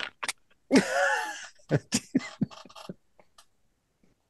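A man's short non-word vocal sounds, with one longer drawn-out utterance about a second in, then a few brief mouth sounds.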